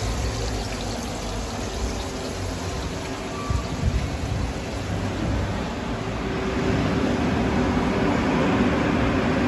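Water trickling and bubbling in a fish spa tank, with faint music underneath and a couple of knocks about three and a half seconds in.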